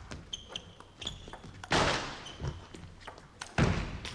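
Table tennis rally: a celluloid ball clicks off bats and table, several hits ringing with a short high ping. A loud hit comes about halfway through, and a heavy thud near the end.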